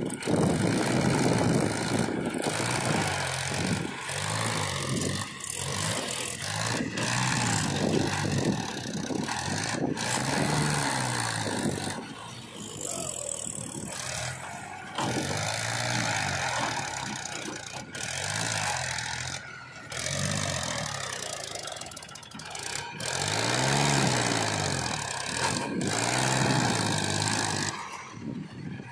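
Powertrac 434 DS tractor's diesel engine working hard under heavy load, its revs rising and falling again and again as it hauls a trolley full of mud through soft, rutted ground.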